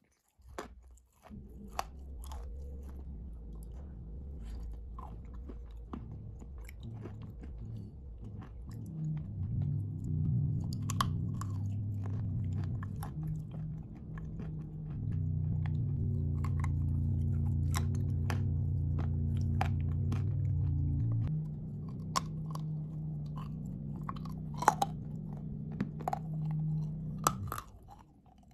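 Dry blue clay being bitten and chewed close to the mouth, with many short, sharp crunches. A steady low hum runs underneath, starting about a second in and stopping shortly before the end.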